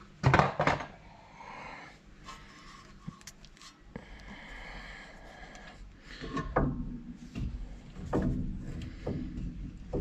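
Metal brake caliper parts being handled and knocked together. A loud clatter comes right at the start, then scraping and rubbing, and a run of clunks and knocks over the last few seconds.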